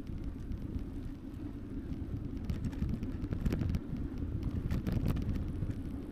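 Wind buffeting an action camera's built-in microphone while riding an e-bike, heard as a steady low rumble mixed with tyre and road noise, with a few sharp clicks or rattles midway.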